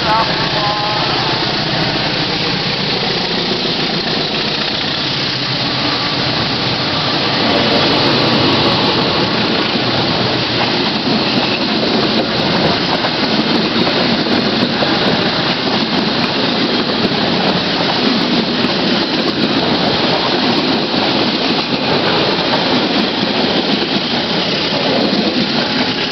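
CC201-class diesel-electric locomotive hauling a passenger train past at speed, its engine running, followed by the passenger coaches rolling by close with a steady rumble and clatter of wheels on the rails.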